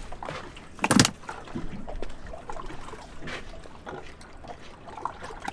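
Water lapping and trickling against a small fishing boat's hull, with one short loud knock about a second in.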